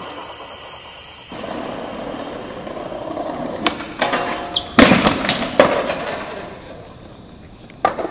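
Skateboard wheels rolling, then several sharp clacks and slams of the board, the loudest about five seconds in, with one more near the end.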